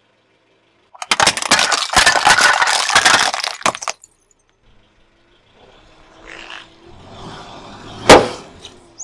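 Brittle plastic ashtrays cracking and shattering under a car tyre, a dense run of loud snaps lasting about three seconds. After a pause, an inflatable vinyl toy creaks and rustles as the tyre presses it, then bursts with a single loud pop near the end.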